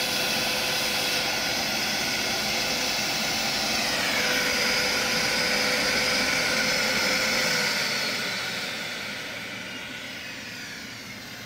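Small gas turbine jet engine, the gas producer of a turboshaft go-kart engine, running with a steady whine. About four seconds in its pitch drops, and from about eight seconds in it winds down and fades as it is shut down at the end of a test run.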